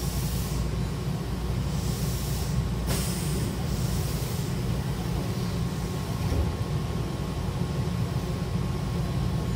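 Train's double sliding doors closing, with a sharp click about three seconds in as they start to move and a low thud about six seconds in as the leaves meet. A steady low hum from the stopped train runs underneath.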